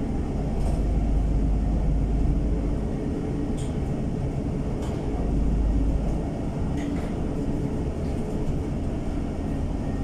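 Cabin noise inside a NefAZ 5299 city bus under way: a steady low drone of the engine and road, swelling slightly twice, with a few faint clicks.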